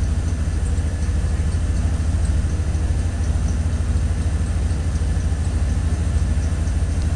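An engine idling steadily: a low, even throb that does not change.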